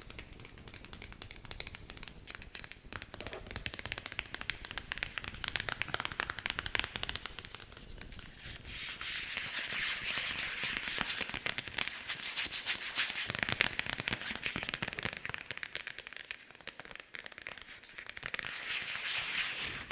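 Close-miked ASMR trigger sounds: a dense run of rapid crackling taps and scratches, growing thicker and brighter about halfway through.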